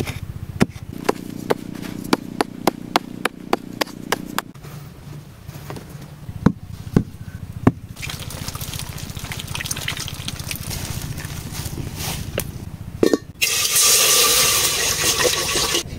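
Food preparation sounds: a run of sharp taps and knocks for several seconds, then a steady watery noise, with a louder hiss over the last two seconds or so.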